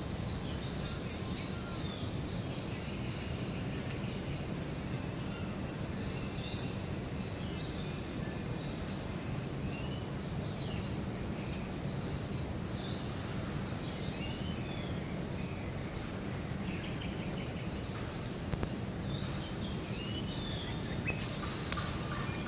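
Steady high-pitched insect drone with short bird chirps scattered throughout, over a constant low background rumble. A few clicks and a brief burst come near the end.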